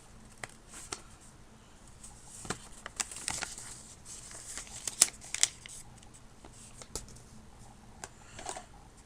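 Scattered light clicks and rustles as an iPod Touch box and its packaging are handled, with a sharper click about five seconds in.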